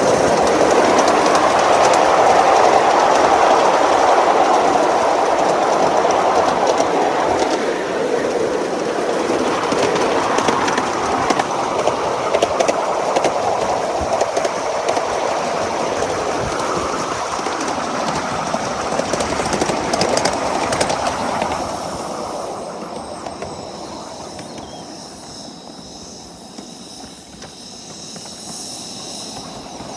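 Miniature steam railway train running, heard from a ride-on passenger car: a steady rumble of locomotive and wheels on the rails. About twenty-two seconds in, the sound drops away to a quieter rolling, with a thin high squeal near the end.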